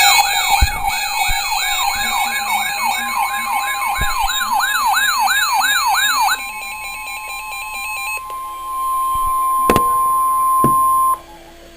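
Weather alert radio sounding an alarm: a wailing siren of fast falling sweeps, about two and a half a second, switches about six seconds in to the long steady single-pitch attention tone of a NOAA Weather Radio warning. The tone grows louder partway through and cuts off sharply near the end.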